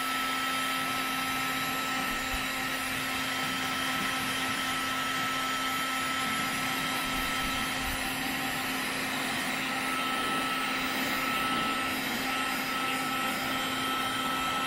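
Electric heat gun running steadily, its fan blowing hot air with a low hum and a steady high whine.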